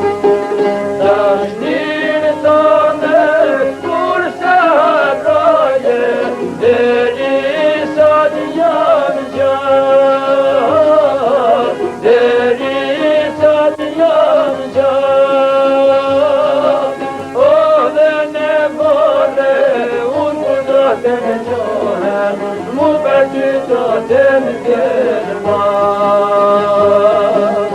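Albanian folk song with a Middle Eastern feel: an ornamented melody of held notes that bend and slide, over steady accompaniment.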